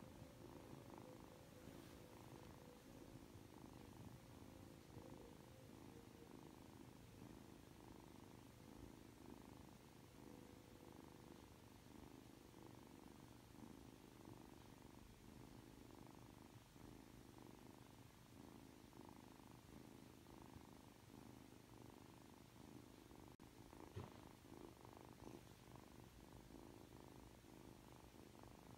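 Ragdoll kitten purring steadily and faintly while being stroked, with a brief soft click about three-quarters of the way through.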